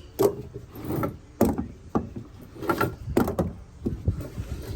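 A series of separate sharp knocks and clunks, about six spread irregularly, like hard objects being handled or a door being moved.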